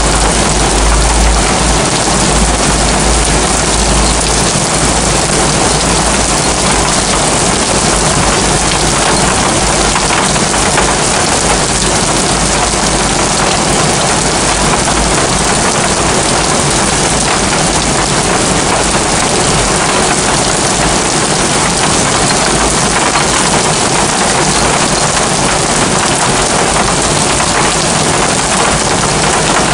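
Heavy rain pouring steadily onto rooftops, with a low rumble during the first few seconds.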